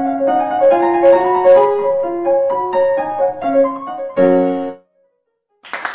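Piano playing a simple melody one note at a time, several notes a second, ending on a chord about four seconds in and stopping suddenly. A burst of noise starts just before the end.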